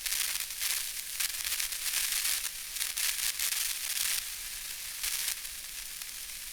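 A steady, crackling hiss with many irregular crackles, mostly high in pitch.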